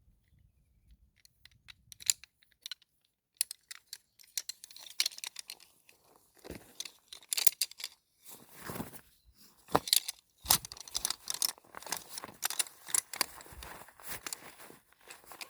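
Irregular rustling, crinkling and clicking of gear or packaging being handled, starting about three seconds in and going on in quick, uneven bursts.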